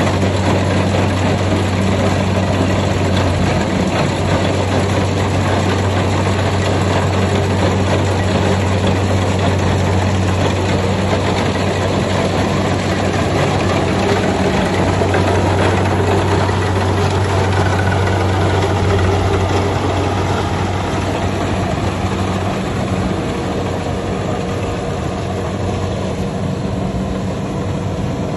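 Kubota combine harvester running while harvesting rice: a steady low engine hum under a dense mechanical rush. About three-quarters of the way through, the low hum drops out and the sound eases a little.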